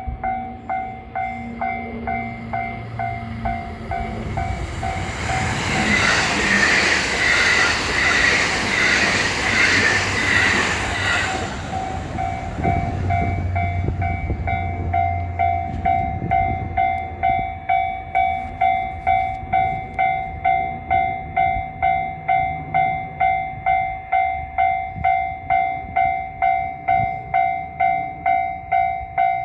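Railway level-crossing warning bell ringing in a steady ding-ding of about two strokes a second. A train on JR West's Kobe Line passes through the crossing, its rushing noise swelling over the bell about five seconds in and cutting off by about twelve seconds. The bell keeps ringing after the train has gone.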